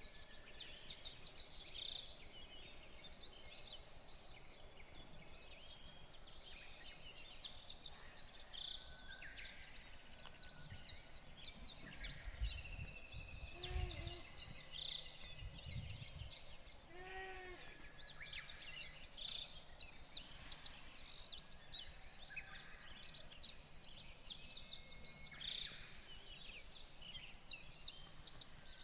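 Many birds chirping and singing in high, quick notes all through. About halfway through, a lower animal call sounds twice, a few seconds apart.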